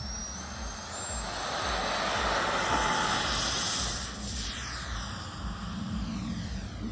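Electric ducted fan of a 3D-printed RC F-35A jet model spooling up with a rising whine and running at full power on its takeoff run, loudest about two to three seconds in as it rushes past, then the pitch falls away as it lifts off and climbs out.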